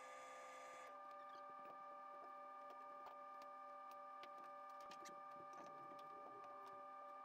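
Near silence: workshop room tone with a steady electrical hum, which changes slightly about a second in, and faint scattered ticks.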